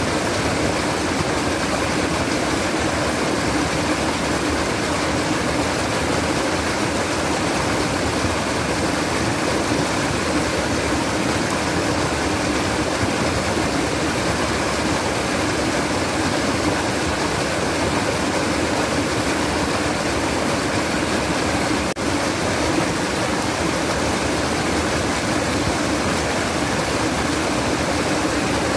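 Babbling, trickling water of a stream or small cascade, running steadily without change, with one brief dip in level about three-quarters of the way through.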